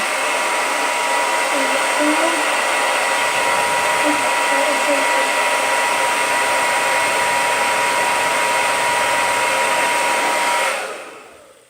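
Handheld hair dryer running on high: steady rushing air with a constant whine. It is switched off near the end and winds down to quiet.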